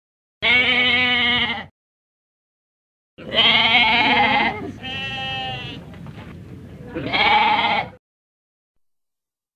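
Goat bleating: one call about half a second in, then a run of several more calls from about three seconds in, the last of them loud.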